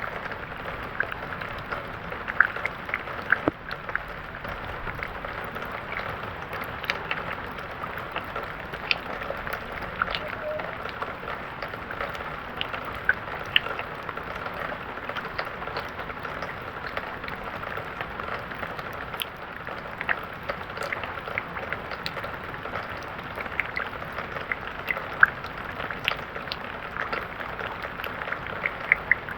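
Steady rain falling, with a continuous hiss and many sharp drop ticks scattered through it.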